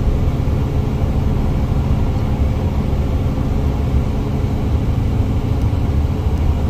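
Steady engine and road rumble of a car being driven, heard from inside.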